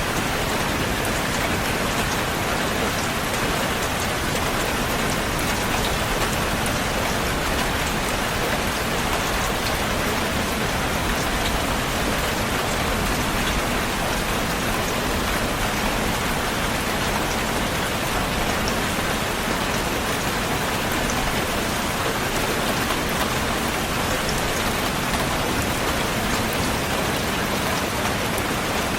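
Heavy rain falling steadily on a surface, an even hiss with fine drop patter.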